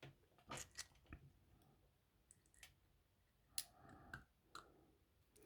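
Faint, scattered small clicks and taps of lock pins being handled on a pinning tray, about eight to ten of them at irregular intervals.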